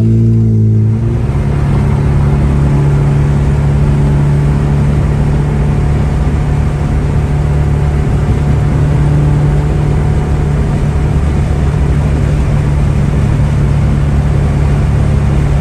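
A car engine revs up briefly, then after about a second gives way to a steady engine drone and road noise from inside a car cruising at speed.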